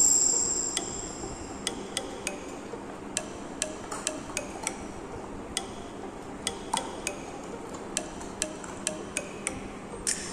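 Labrador retriever picking at and crunching dog treats on a marble floor: irregular sharp clicks and taps, two or three a second, over a steady low hum. A single ringing clink right at the start is the loudest sound.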